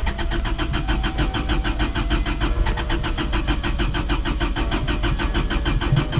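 Toyota Cressida's starter motor cranking the engine in an even, rapid rhythm without it catching. The car is being jump-started from a portable power bank after the gas pedal was pumped many times, and it will not start.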